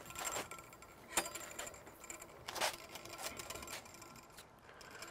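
A heavy ceramic Komodo Kamado grill being rolled and turned on its wheels over pavers: irregular sharp clicks and clinks, the loudest about a second in and near the middle.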